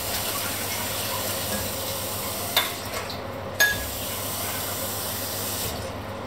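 A steady hiss that starts abruptly and stops abruptly shortly before the end, with two sharp clinks about a second apart in the middle.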